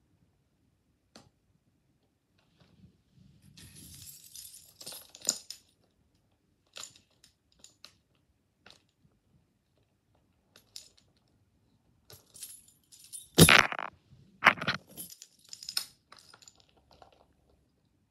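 Plastic packaging on a Blu-ray case crinkling and tearing as it is handled and pulled open, with scattered clicks. Two sharp, louder snaps come about three-quarters of the way through, followed by more crackling.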